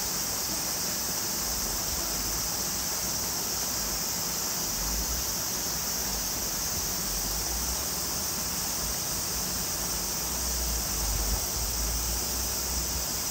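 Steady summer cicada chorus, an unbroken high hiss, with low wind rumble on the microphone swelling now and then.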